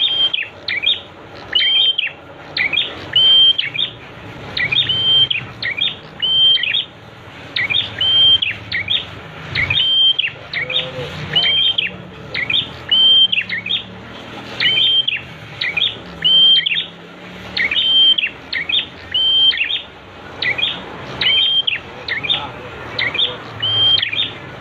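Prinia (prenjak) song: short, sharp chirping phrases repeated about once a second, over a steady background hiss.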